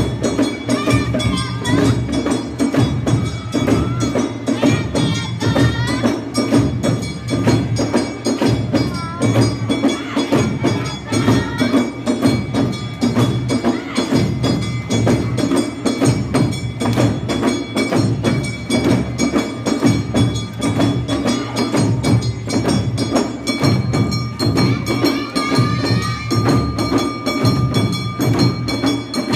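Awa Odori festival music played live by a passing dance band: fast, steady drumming and the clanging of a hand gong in the quick two-beat dance rhythm, with a flute melody weaving over it at times.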